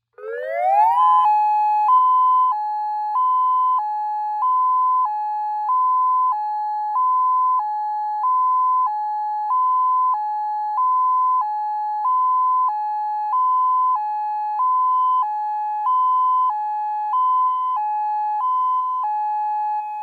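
Homemade dual-tone electronic siren, driven through two 200-watt speakers, sounding its alternate steady (high-low) signal. It winds up over the first second, then switches back and forth between a high and a low pitch about every half second, and settles on the low pitch near the end. It is really loud.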